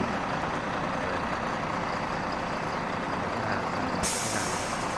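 Steady noise of machinery or an engine running, with a high hiss that starts suddenly about four seconds in.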